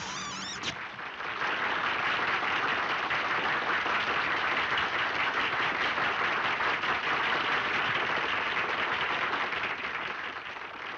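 Audience applauding: a dense, steady clapping that eases off slightly near the end.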